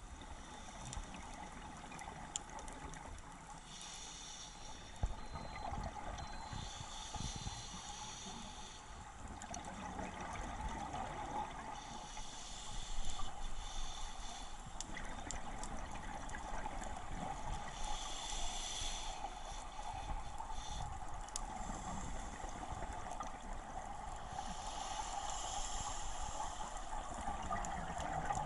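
Scuba breathing heard underwater through the camera housing: bursts of exhaled bubbles from a regulator about every six seconds over a steady hiss.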